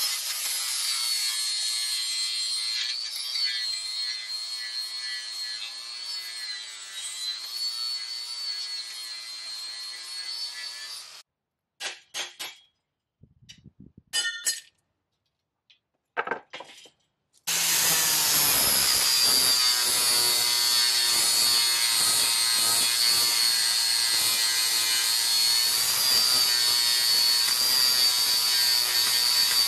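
A 4.5-inch angle grinder with a 40-grit flap disc grinding down rivet heads on steel bed-frame angle iron: a steady high whine and hiss. It stops about eleven seconds in, and a few sharp hammer knocks follow as the ground-off rivet is punched out. Grinding starts again, a little louder, about seventeen seconds in.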